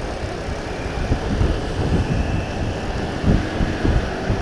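Motorcycle engine running while riding at road speed, with wind buffeting the action-cam microphone in uneven low gusts.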